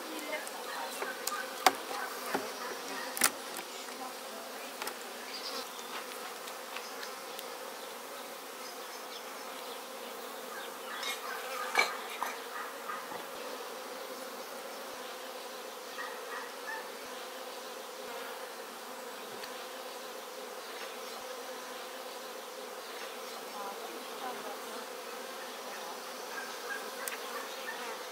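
Honeybees buzzing steadily around an opened hive. A few sharp clicks and scrapes of a metal hive tool prying at the wooden frames come through, the loudest about twelve seconds in.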